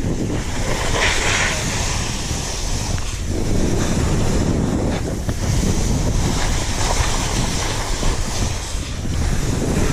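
Skis turning down grooved spring corn snow, the edges scraping and hissing in swells that rise and ease with each turn. Wind rushes over the microphone throughout.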